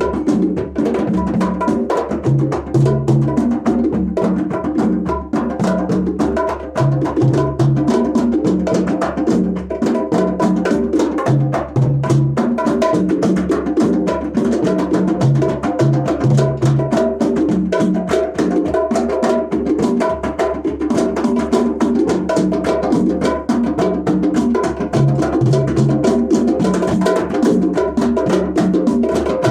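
Djembe hand drumming in a steady, busy rhythm, with sharp slaps and repeated low bass tones.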